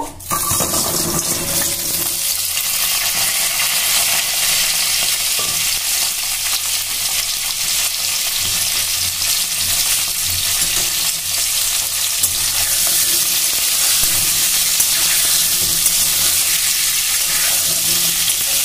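Pieces of pointed gourd dropped into hot oil in a kadai, sizzling at once and then frying with a steady, loud sizzle.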